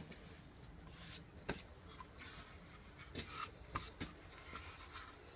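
Faint rubbing with a few light knocks and clicks as sanding dust is wiped off a wooden box by hand, the sander switched off.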